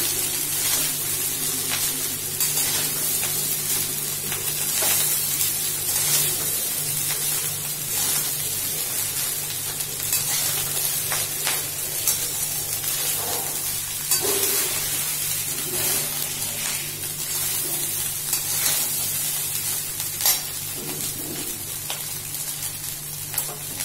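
Cooked basmati rice frying in ghee in a stainless steel wok, sizzling steadily, while a metal spatula scrapes and knocks against the pan as the rice is stirred and tossed.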